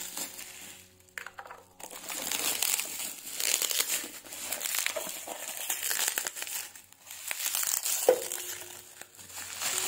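Bubble wrap and plastic film crinkling and rustling as hands pull them off a packaged tissue box, in bursts with short pauses about a second in and near seven seconds. One sharp snap about eight seconds in is the loudest moment.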